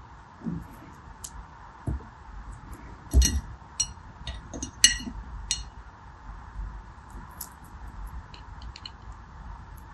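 Small hard translucent soap pieces clicking and clinking: a serrated knife cutting into them, and pieces tapping against a glass bowl. A quick cluster of clinks comes a little over three seconds in, and the sharpest one near five seconds.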